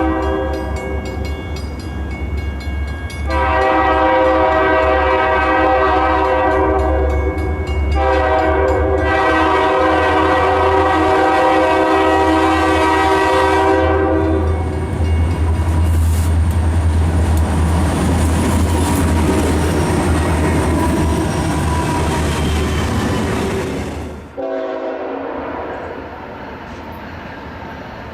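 Locomotive air horn sounding a multi-note chord in long blasts: a softer one at first, then two louder blasts of about four and six seconds with a short break between. After the horn stops, the passing train's low rumble and rail noise go on. Near the end the sound cuts abruptly to a quieter scene with a brief, fading horn.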